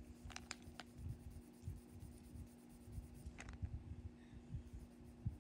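Faint mouth clicks and smacks of a person chewing bubble gum, a few sharp ones near the start and one about three and a half seconds in, with soft rubbing and bumps on the microphone over a steady low hum.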